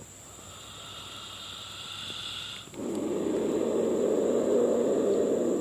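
King cobra hissing: a faint breath first, then about halfway through a loud, low-pitched rasping hiss that lasts about three seconds.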